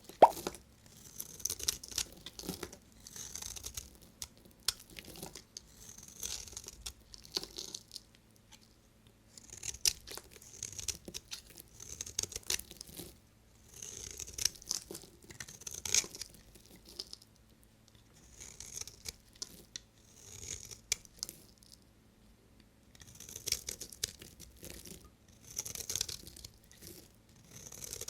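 Knife cutting through bars of dry soap: repeated crisp crunching, scraping strokes with sharp cracks, in bursts every second or two with short pauses between.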